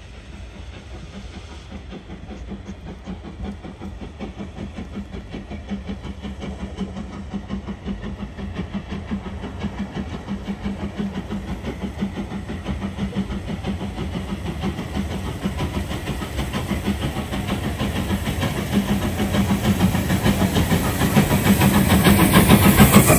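LMS Jubilee Class 4-6-0 steam locomotive 45596 Bahamas, a three-cylinder engine, working slowly up the line with its exhaust chuffing and hissing. The sound grows steadily louder as the engine draws near and is at its loudest as it passes close by near the end.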